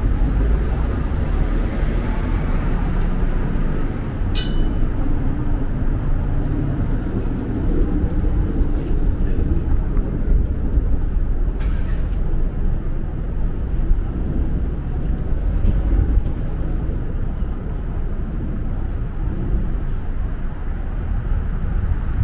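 Steady street traffic noise, heavy in low rumble, with a brief sharp squeak about four seconds in.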